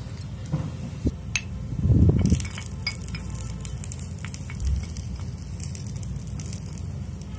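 A spatula stirring in a kadai (vadasatti) during stir-frying, clinking and scraping against the pan in quick irregular strokes over a steady low rumble. A heavier knock comes about two seconds in.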